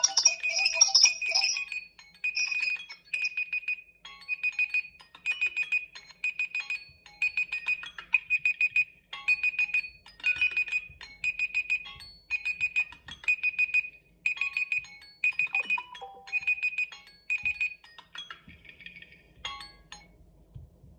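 Several Samsung Galaxy smartphones sounding alerts at once. A ringtone melody ends in the first two seconds, then a high electronic beeping in quick pulsed groups, about one group a second, with fainter phone tones layered over it. The beeping stops about 18 seconds in, followed by a couple of clicks.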